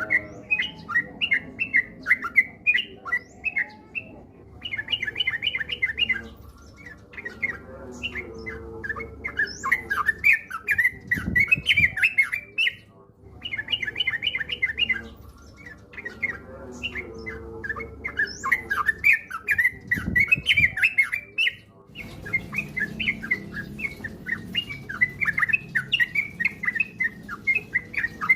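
Yellow-vented bulbul (trucukan) singing: bursts of rapid, bubbling chirps in phrases of a few seconds, with short pauses between them.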